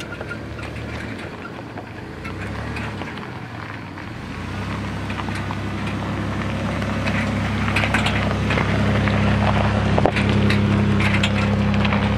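An SUV creeping slowly up a dirt track, its engine a steady hum that grows louder as it draws near. From about halfway, its tyres crunch and crackle over gravel and loose dirt.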